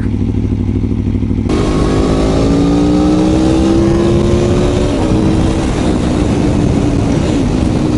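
Aprilia Tuono V4 1100 Factory's V4 engine, fitted with an Arrow exhaust, pulling under throttle while ridden: its pitch climbs steadily, dips about five seconds in, then holds. Wind noise runs underneath.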